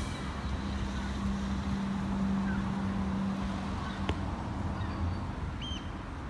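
Outdoor ambience: a steady low hum for the first few seconds, a single sharp click about four seconds in, and a short high bird chirp near the end.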